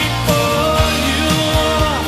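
1980s pop-rock band music: a regular drum beat and bass under long held notes.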